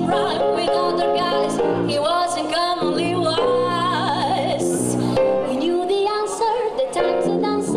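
Female jazz vocalist singing a melodic line, accompanied by electric bass and piano.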